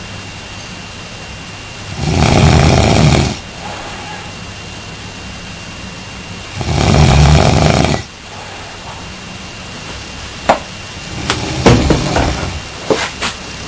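A man snoring loudly in his sleep: two long snores about four and a half seconds apart, each lasting over a second, then a run of sharp clicks and short irregular noises near the end.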